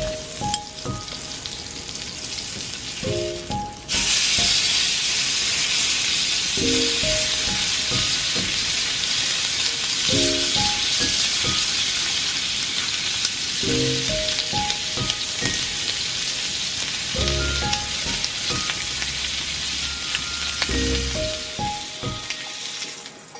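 Duck breast searing skin-side down in a small cast-iron skillet, its fat sizzling steadily. The sizzle jumps suddenly louder about four seconds in and drops away near the end.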